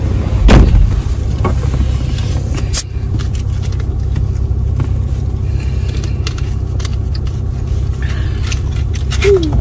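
Steady low rumble of a car cabin with the engine running. A thump comes about half a second in, and near three seconds in a short sharp hiss as a plastic soda bottle is twisted open.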